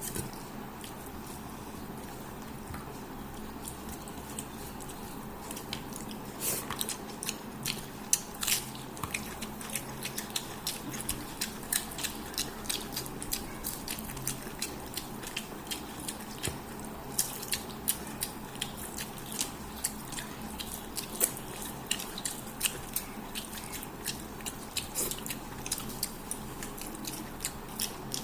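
Close-miked eating: chewing and biting on a fish head with rice, with many short, sharp mouth clicks from about six seconds in, over a steady background hiss.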